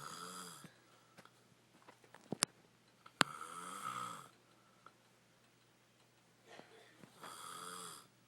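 Loud, heavy snoring: three long rasping snores about three and a half seconds apart, each dropping in pitch as it goes. A couple of sharp clicks sound just before the second snore.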